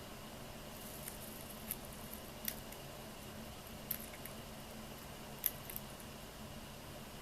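A Fischer's lovebird cracking foxtail millet seeds in its beak, holding the millet spray in its foot: small, sharp, irregular clicks, about seven of them, over a faint steady background hum.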